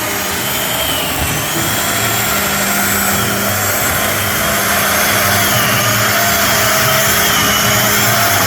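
Chainsaw cutting along a wooden stair stringer, running steadily under load with its pitch wavering slightly, getting a little louder partway through.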